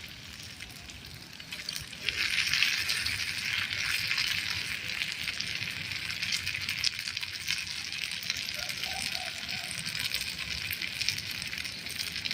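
Leaves frying in hot oil, a dense sizzle with many small pops that jumps up sharply about two seconds in, as if more leaves went into the pan, and then sizzles on steadily.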